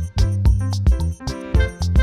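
Background music with a steady beat, about two beats a second, over sustained instrumental tones.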